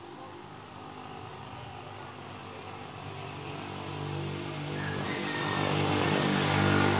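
A motorcycle engine running and drawing nearer, its sound growing steadily louder and loudest near the end.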